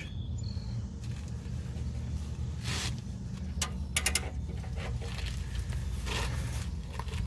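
Scattered metal clicks and short scrapes of a ratchet and oxygen-sensor socket working on a seized downstream O2 sensor in a 1999 Jeep Cherokee XJ's exhaust, over a steady low rumble; the clicks bunch together about four seconds in. The sensor is stuck fast and won't budge.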